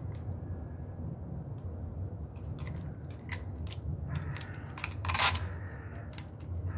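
Small plastic clicks and rattles as a string of ball-bulb fairy lights is handled and threaded along a railing, with a brief louder rustle about five seconds in, over a steady low background rumble.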